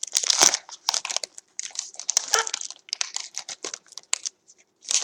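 Trading card pack wrapper crinkling as it is torn open, in quick irregular crackles.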